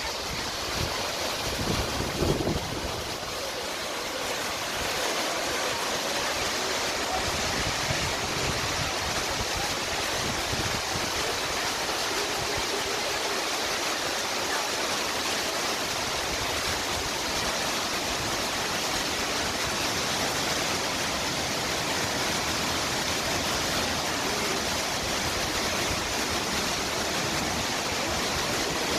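Ouzoud waterfalls rushing steadily: an unbroken hiss of falling water. In the first few seconds a few low bumps of wind hit the microphone.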